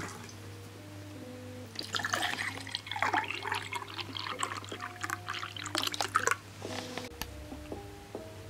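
Orange juice poured into a drinking glass, a splashing, gurgling pour lasting about four seconds from about two seconds in. Light background music with held notes plays underneath.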